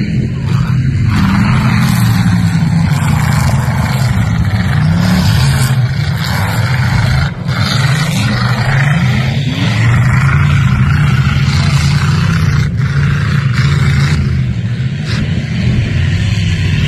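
V8 dirt-track race car engines running hard, rising and falling in pitch several times as the cars accelerate and lift off.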